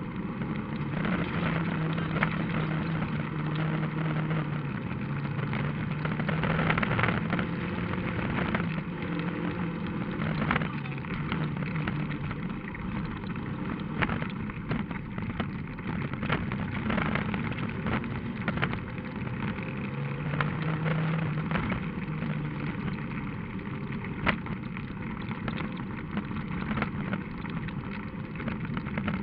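Rally car engine running hard on a gravel stage, heard from inside the car, with stones and gravel clattering against the body in many sharp knocks.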